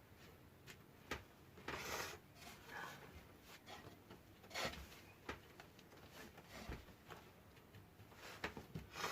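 Faint, irregular rubbing and scraping as power-feed wires are worked through holes in the cork underlay and baseboard of a model railway, with a few light clicks and taps.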